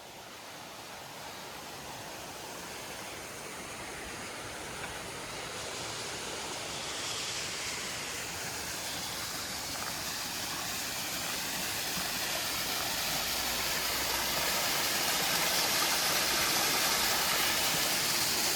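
Rushing water of a forest stream, a steady noise that grows gradually louder throughout.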